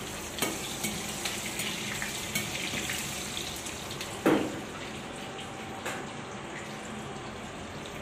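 Curry leaves and whole spices sizzling in hot oil in a wok, a steady frying hiss with a few light clicks and one louder knock about four seconds in.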